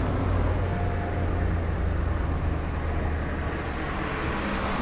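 Road traffic noise: a steady low engine rumble with a broad hiss of tyres on the road.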